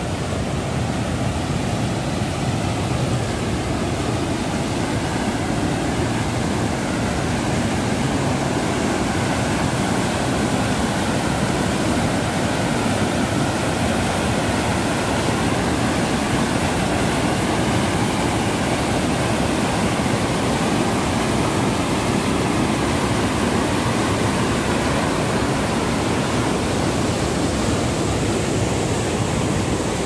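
Waterfall cascading over rock ledges: a loud, steady rush of white water.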